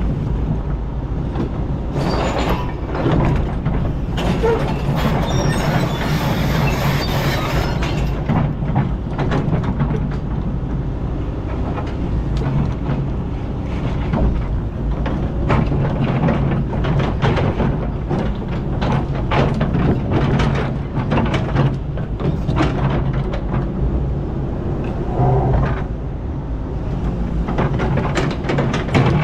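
Kobelco hydraulic excavator's diesel engine running steadily, heard from the operator's cab, with frequent scrapes and knocks as the steel bucket works the stony sand.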